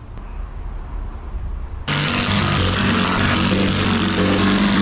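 Handheld cordless power tool running against the edge of a plywood gunwale. It starts abruptly about two seconds in and runs steadily, with a hum under a loud rushing noise.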